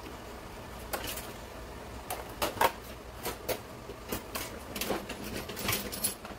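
Kitchen utensils clinking and rattling against each other as a hand rummages through a crowded utensil drawer, in a run of irregular knocks and clatters.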